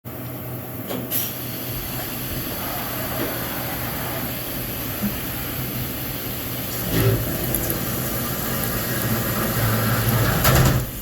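CNC milling machine running, a steady mechanical noise with a low hum, growing louder about seven seconds in and again near the end.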